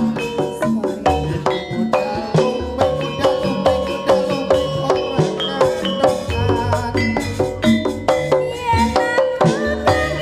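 Jaranan gamelan music: quick, even strokes on ringing pitched metal percussion over drum beats. A wavering high held tone joins in over the second half.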